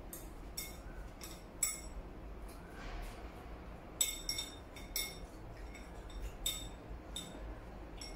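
Chopsticks clinking against ceramic bowls: a string of sharp, ringing clinks at irregular intervals, the loudest about four seconds in.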